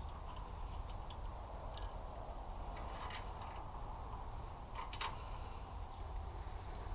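Faint, scattered metallic clicks and taps of a wrench and fuel-line fittings being handled while the injector fuel line of a 168F diesel engine is reconnected, over a low steady background noise.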